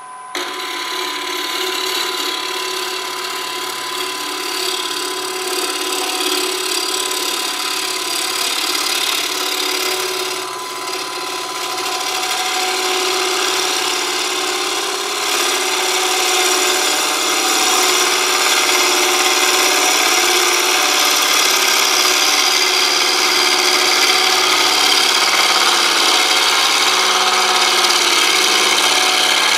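A bowl gouge cutting a very dry elm bowl blank spinning on a wood lathe at about 1,000 RPM: a steady shearing hiss of the cut over the lathe motor's hum, starting abruptly just after the opening. The cut is truing the blank, bringing it almost round.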